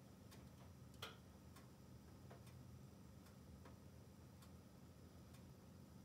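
Logs burning in a closed wood-burning stove, crackling faintly with scattered small snaps and one louder pop about a second in, over a low steady hum.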